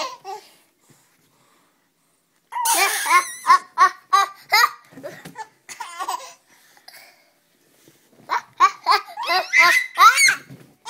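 A baby and a young girl laughing in quick, high giggles: one burst about two and a half seconds in, a short one near the middle, and another near the end.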